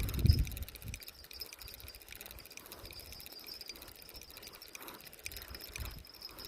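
Insects chirping steadily in a high, continuous trill, with a louder low rumble during the first second.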